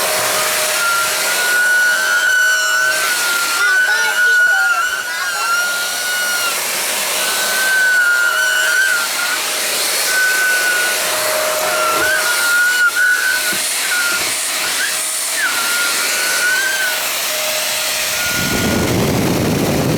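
Starwind SCH 1621 handheld vacuum cleaner running: a steady rush of air with a high, wavering whistle that keeps breaking off and coming back. Near the end a deeper rush joins in.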